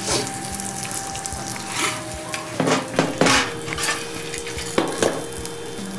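Halved bitter gourds sizzling in oil on an iron tawa, with a metal spatula scraping and knocking against the pan several times in the second half as the pieces are lifted off.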